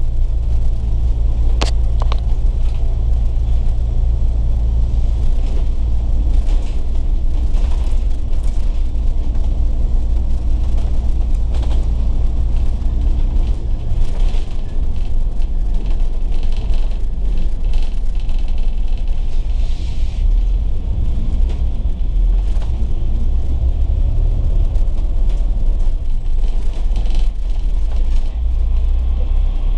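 Steady low rumble of a Volvo B9TL double-decker bus running, its diesel engine and road noise heard from inside the bus. A brief sharp click comes about two seconds in.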